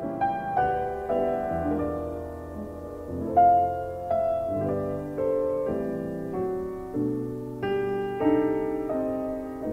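Background piano music: a slow melody of single struck notes, each ringing and fading before the next.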